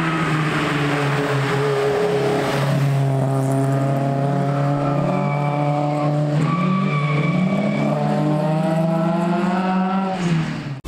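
Fiat Ritmo Abarth 130TC cars with twin-choke Weber carburettors, their twin-cam four-cylinder engines running hard through a bend, the engine note rising and falling as they accelerate. The sound stops abruptly near the end.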